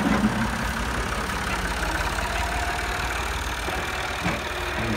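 Massey Ferguson 260 turbo tractor's three-cylinder diesel engine running steadily at low revs.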